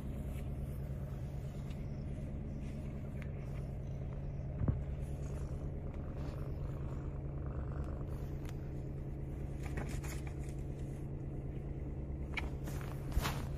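Brown tabby cat purring steadily, close up, with a brief knock about a third of the way in and a few rustles from handling near the end.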